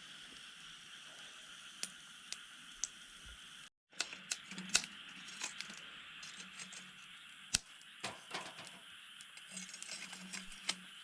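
Quiet camp ambience: a faint steady hiss with scattered light clicks and clinks. The sound cuts out briefly about four seconds in.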